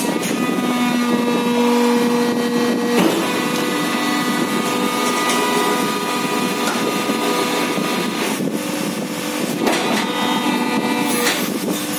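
Plastic injection moulding machine running: a steady hydraulic hum with several tones that shift about three seconds in, and a few knocks as the safety door slides and the mould moves.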